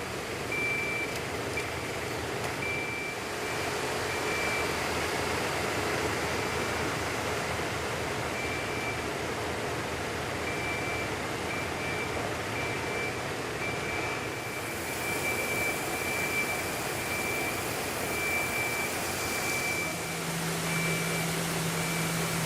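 Fire pump truck working during a water-discharge drill: a steady rushing noise, with a high tone sounding on and off throughout and a low hum coming in near the end.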